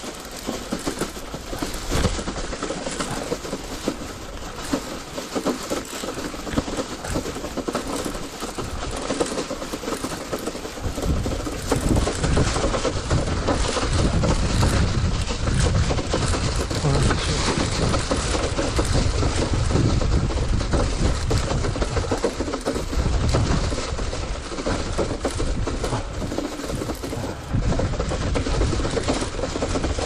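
A rented city bicycle rattling and clattering over a rough dirt-and-grass track, with the wire front basket and frame shaking on every bump and the tyres crunching on the ground. A heavy low rumble joins about a third of the way in and holds.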